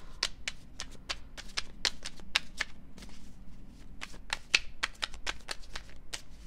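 A deck of cards being shuffled by hand: a quick run of crisp card slaps, about four a second.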